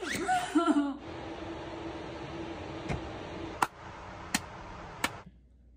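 A brief voice sound, then a steady hum in a car cabin with four slow hand claps, evenly spaced a little under a second apart.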